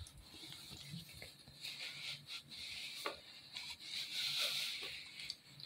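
Faint rustling of a terry-cloth towel rubbed over a face as it is dried, loudest about four seconds in.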